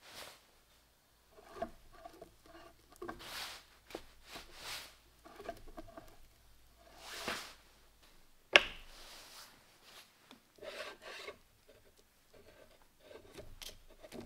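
Metal lathe apron gearbox being handled on a wooden bench: rubbing and scraping of metal on wood, small scattered clicks, and one sharp knock about eight and a half seconds in.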